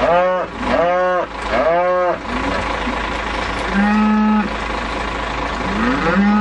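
Beef cattle mooing. Three short calls rise and fall in the first two seconds, then a flatter, lower moo comes about four seconds in, and another rises and holds near the end.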